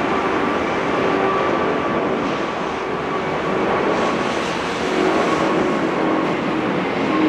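Airbus A380 jet engines at takeoff thrust during the climb-out: a steady, loud rushing jet noise with a faint steady whine.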